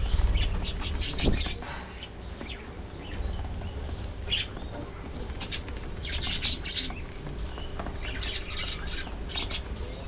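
A colony of budgerigars chirping and chattering in bursts of short, high calls. A low rumble runs underneath, with a couple of louder bumps in the first second or so.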